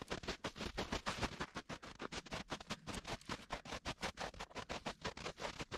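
A person running on a woodland trail: a quick, even rhythm of footfalls.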